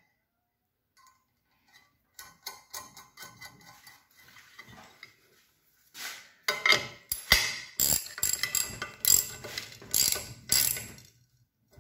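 Socket ratchet wrench tightening the nut on a wedge anchor bolt, clicking in strokes about twice a second through the second half. Before that come faint metal clicks as the nut is fitted.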